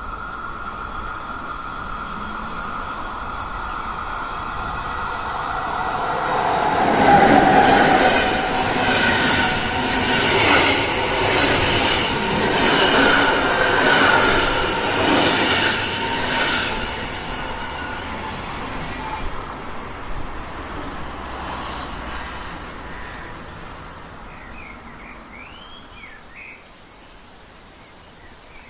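A train passing by: a steady whine as it approaches, then a loud rhythmic clatter of wheels on the rails for about ten seconds, fading away as it leaves. A few bird chirps near the end.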